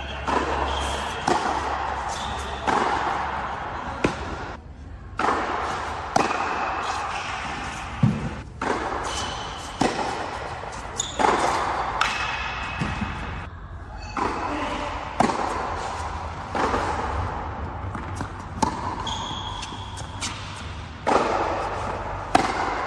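Tennis rally on an indoor hard court: the ball struck by rackets and bouncing, a sharp hit about once a second, each one echoing through the large hall.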